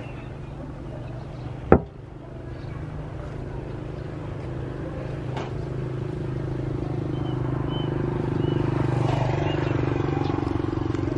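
Engine of a passing motor vehicle, a steady drone that grows louder over several seconds and eases off slightly near the end. A sharp click comes about two seconds in.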